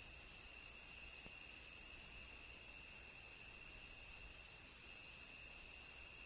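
A steady, high-pitched chorus of night insects, unbroken and even.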